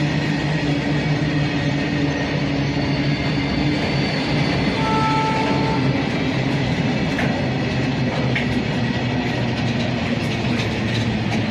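Long freight train running past, a steady rumble of wagons on the rails with scattered wheel clicks toward the end. A short high two-note tone sounds for about a second, roughly five seconds in.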